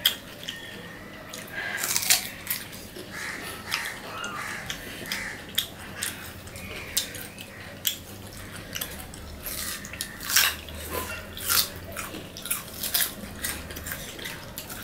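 Two people biting and chewing crisp green amra (ambarella) fruit: many irregular short crunches and wet mouth sounds, with sucking at the fibrous seed near the end.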